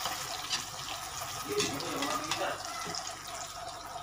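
Battered jackfruit fritters deep-frying in hot oil in a wok: a steady sizzle with many small crackles and pops.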